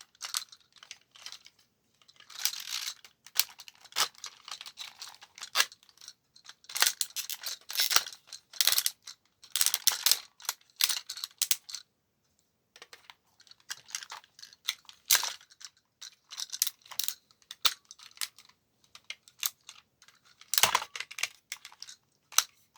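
Hard plastic and die-cast toy parts of a G1 Galvatron figure clicking, knocking and scraping in irregular bursts as it is handled and transformed, with a short pause near the middle.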